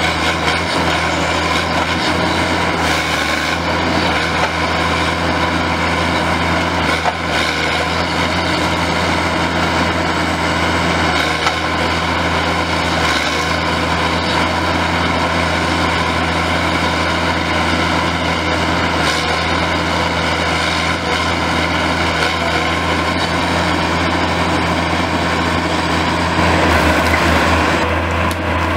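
Timberjack 1070 wheeled forestry harvester's diesel engine running steadily with a constant low hum, under load from the hydraulic crane working the harvester head. Near the end the sound grows louder and brighter as the head closes on a tree.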